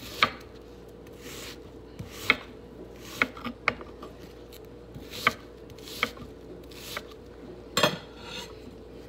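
Kitchen knife cutting a white onion on a wooden cutting board: irregular sharp knocks of the blade meeting the board, about seven in all, with short scrapes between as the onion is handled.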